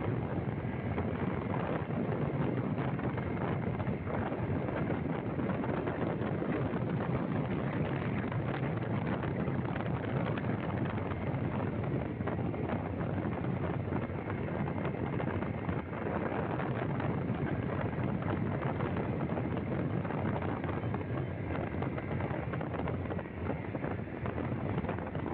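Steady rushing wind buffeting the microphone, mixed with the running noise of a moving vehicle on the road.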